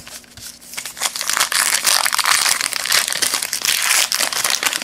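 Trading-card pack wrapper crinkling in the hands as the next pack is opened: a dense crackle that starts about half a second in and grows louder.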